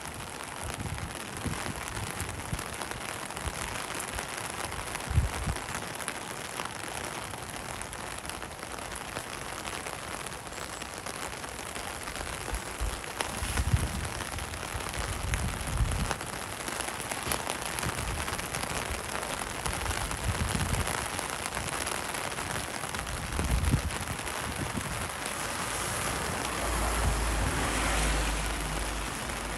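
Steady rain falling, a dense even hiss throughout. A few short low thuds stand out, and a low steady rumble comes in near the end.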